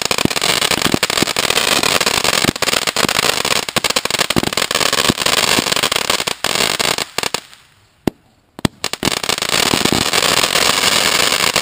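Consumer fireworks cake going off: dense, loud crackling with many sharp pops, a brief lull about seven and a half seconds in, then crackling again.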